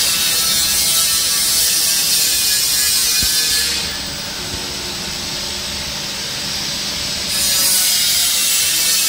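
Barth Tornado 60 burner running on its first test firing: a steady rushing noise, quieter for about three seconds in the middle.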